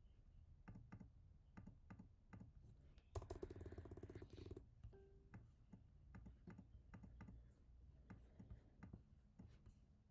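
Faint, irregular clicking of a computer keyboard and mouse, several quiet clicks spread across the stretch.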